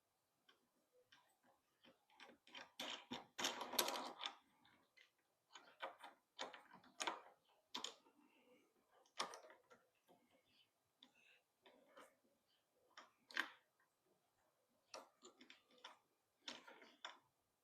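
Scattered light clicks and knocks of plastic handle parts and bolts being fitted and screwed together by hand, with a denser rattle of handling about three to four seconds in.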